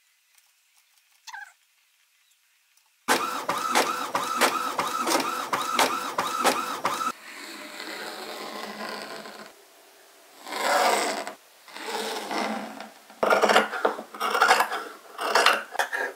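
A small machine starts about three seconds in and runs for about four seconds with a fast, even clatter. Then come fainter scraping and rustling, and near the end scissors snip through fabric in quick, irregular cuts.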